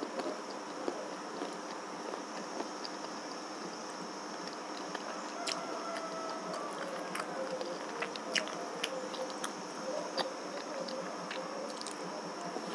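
Quiet eating sounds: fingers mixing rice on a steel plate and chewing, with scattered small clicks, more of them in the second half. Under them runs the steady light hum of an electric fan.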